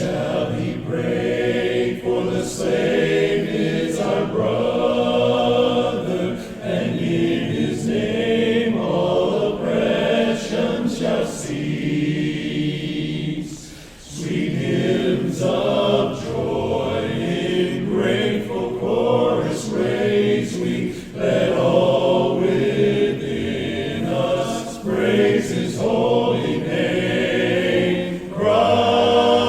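Men's barbershop-style a cappella voices singing sustained chords in close harmony, with a short break between phrases about fourteen seconds in.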